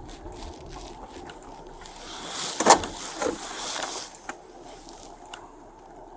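Road noise and rumble inside a moving patrol car, with a brief louder rustling burst about two and a half seconds in.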